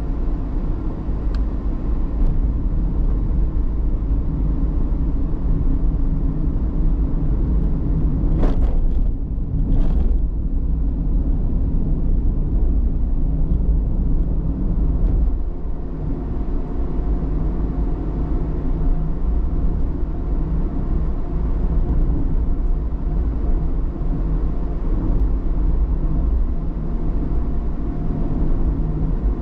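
A vehicle's engine and road noise while driving, a steady low rumble. Two brief whooshes come about eight and ten seconds in.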